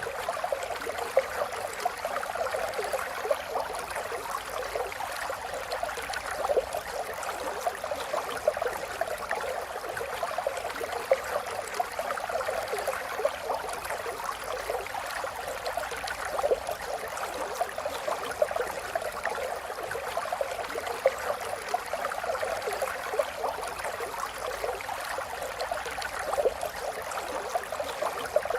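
A river flowing steadily: a continuous rush of running water with fine bubbling flickers, even in level throughout.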